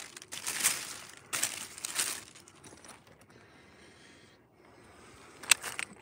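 Cellophane and paper wrapping crinkling in several bursts as it is handled and folded back around a wrapped stone, loudest in the first two seconds, then quieter, with a sharp tap about five and a half seconds in.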